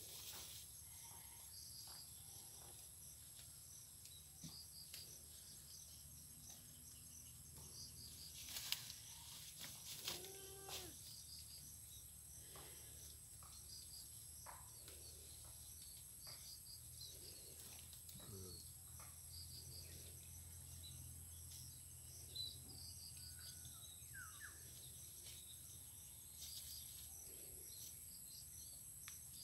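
Faint rural ambience: a steady high insect buzz with repeated small chirps, and scattered soft clicks and rustles of goats browsing in leafy undergrowth. One short pitched call comes about ten seconds in.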